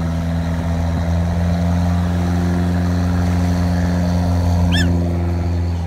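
Small fishing boat's inboard engine running steadily close to shore, a constant low drone. A gull calls once near the end.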